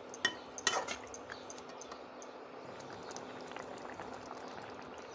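Thick spinach-and-chicken gravy simmering in a pan, bubbling with many small pops and plops; it has just been thinned with half a glass of water. Two light metallic clinks come near the start, about half a second apart.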